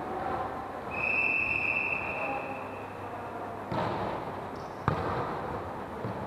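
Referee's whistle blown once for about a second, signalling the serve, followed by two sharp hits of a volleyball in a large echoing sports hall.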